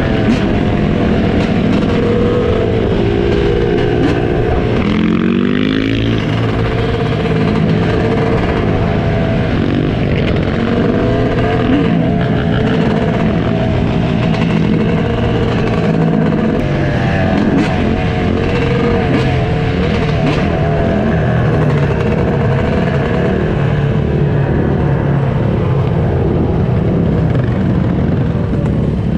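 Yamaha YZ250 two-stroke dirt bike engine running under way, its pitch rising and falling with the throttle, with a clear rev up about five seconds in. The engines of the quads and dirt bikes riding alongside mix in.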